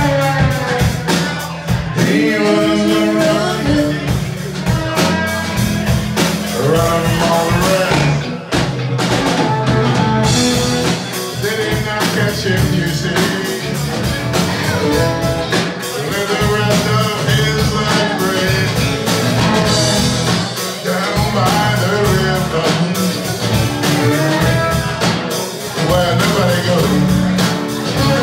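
Live band music: a bowed fiddle plays over strummed acoustic guitar and a drum kit, with no break throughout.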